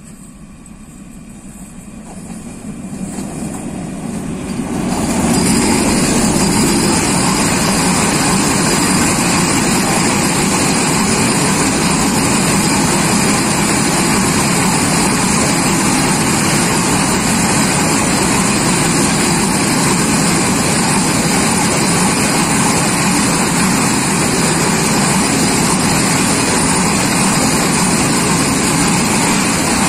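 Freight train passing close by. It grows steadily louder over the first five seconds as the locomotive comes up, then a long string of open-top freight wagons rolls past with a steady, loud wheel-on-rail rumble.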